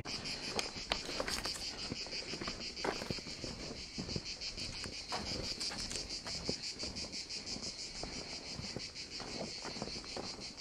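A chorus of insects chirring in a steady, high-pitched, fast-pulsing trill, with irregular soft knocks and rustles underneath.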